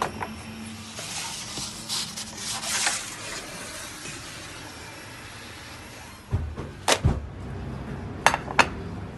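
Kitchen handling noises from food being shuffled on a wooden peel and table: scraping and rubbing for the first few seconds, a few dull knocks about six to seven seconds in, and two sharp clicks near the end.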